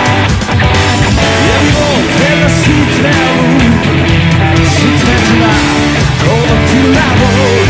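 Rock band music without vocals. A guitar plays a lead line with bent, sliding notes over a steady bass and drum beat.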